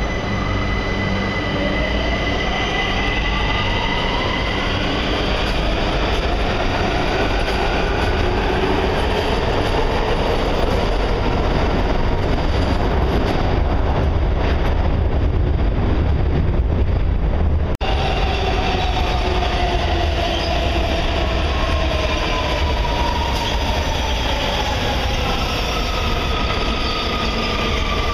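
Washington Metro train in an underground station, its electric traction motors whining upward in pitch over heavy wheel and rail rumble as it pulls away. After a brief cut, a train runs past with a whine that falls slowly as it slows.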